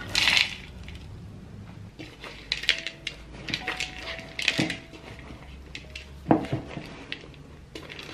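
Chopped dark chocolate pieces poured onto dough in a wooden bowl, a brief rattling rush at the start. Then hands knead the dough in the bowl, with irregular soft knocks and scrapes of chocolate pieces and dough against the wood.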